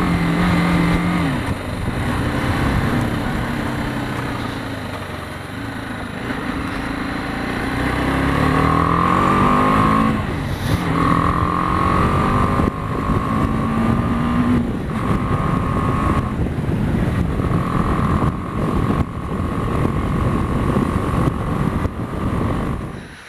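BMW G 310 GS's single-cylinder engine running under way, rising in pitch as it accelerates about eight seconds in, then holding steady, over wind and road rumble.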